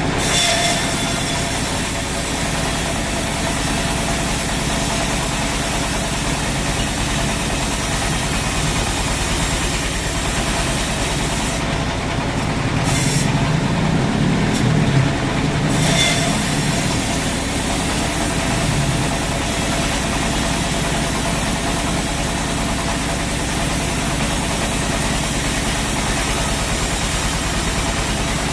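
Sawmill machinery running steadily with a constant low hum, swelling louder for a few seconds about halfway through, with a couple of brief sharp clicks.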